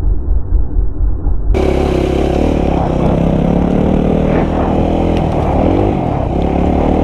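Motorcycle engine running and revving, its pitch rising and falling. For the first second and a half the sound is muffled and dull, then it turns clear.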